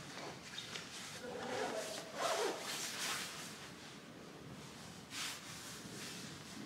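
Faint distant talking, briefly, with short rustling noises.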